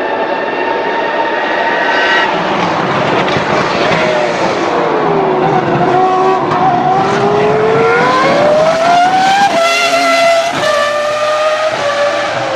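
Car engine running with its pitch sinking slowly, then climbing for a few seconds. It drops abruptly about ten seconds in and again a second later, like gear changes.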